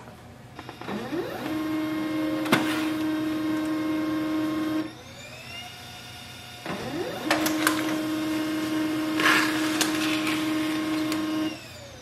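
Pantum M6559NW monochrome laser printer printing a test page. Twice, its motors spin up with a rising whine, run with a steady hum and a few clicks for about four seconds, then wind down.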